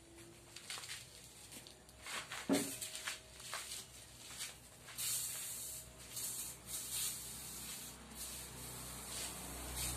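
Resin-loaded brush dabbing and scrubbing wet fiberglass mat down onto a mould: irregular scratchy swishes and soft pats. The loudest stroke comes about two and a half seconds in.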